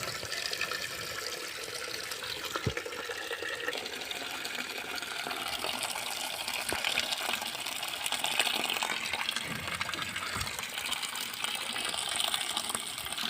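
Rainwater pouring from a roof drainpipe into a bucket: a steady gush of water filling it, with a couple of brief knocks.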